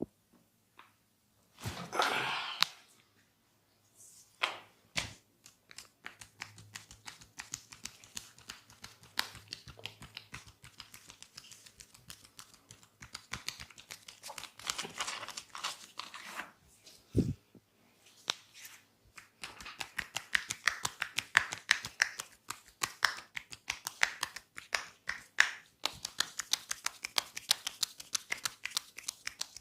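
Hands massaging a man's head close to the microphone: fingers rub, scratch and tap through hair and over the scalp in a dense, rapid crackle. A few single sharp clicks stand out, and the crackle grows busier over the last ten seconds.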